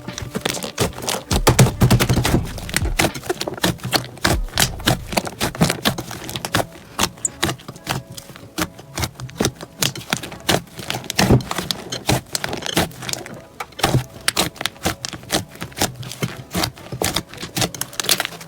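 Slime being squeezed and pressed, giving rapid, irregular crackling clicks and pops, fuller and heavier in the first few seconds.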